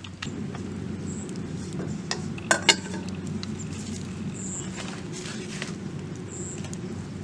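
A metal lid set onto a cooking pot, giving two sharp clinks close together about two and a half seconds in, over steady low background noise.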